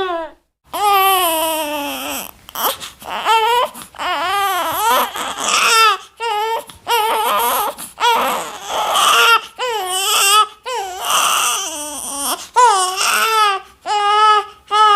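A baby crying: a long run of high wailing cries broken by short catches of breath.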